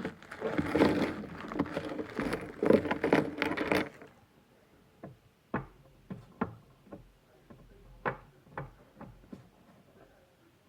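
Cardboard and plastic packaging of a Funko figure box being handled and opened: a dense crackling and rustling for about four seconds, then scattered light taps and clicks.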